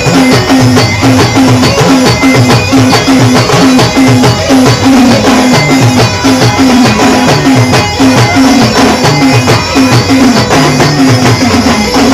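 A band playing Timli folk dance music: a fast, driving drum rhythm under a repeating melody, loud and unbroken.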